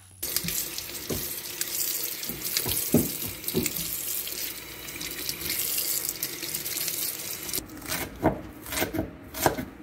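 Kitchen tap running into a stainless steel sink while green onions are rinsed under the stream. About three-quarters of the way in the water gives way to a knife chopping on a wooden cutting board, several quick chops.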